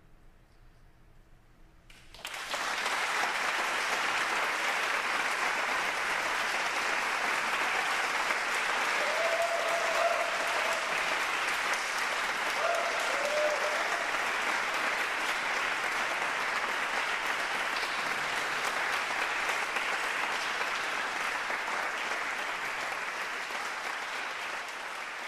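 Audience applause breaks out suddenly about two seconds in and carries on steadily, easing off near the end. A couple of short cheers rise above the clapping midway.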